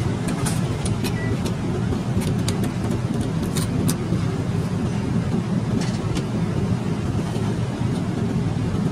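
Steady low drone of an airliner's cabin in flight. Over it come crinkles and clicks from the foil lid being peeled off a hot airline meal container, mostly in the first four seconds and once more around six seconds.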